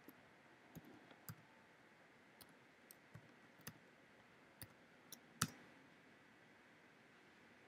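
Faint, irregular clicks of keys on a computer keyboard as a password is typed, ending about five and a half seconds in with a louder click that submits the login; after that only faint hiss.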